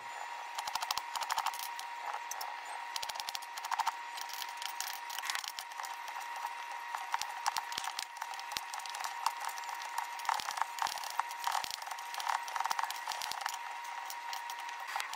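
Chef's knife chopping onion and carrots on a glass cutting board: quick, irregular clicks and taps of the blade striking the glass, with the odd scrape as the pieces are pushed aside.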